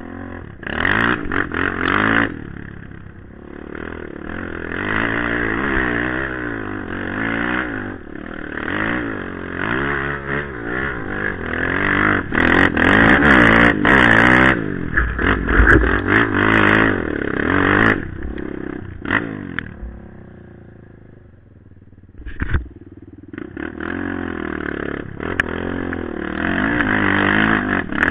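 Off-road vehicle engine heard from on board, revving up and down repeatedly as the rider works the throttle over rough ground, with sharp clattering knocks from the terrain. Near the end of the second third it drops back off the throttle for a couple of seconds, then pulls hard again.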